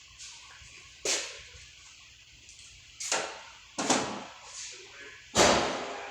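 Four sharp knocks, each dying away quickly: about a second in, twice around three to four seconds, and a loudest one about five and a half seconds in.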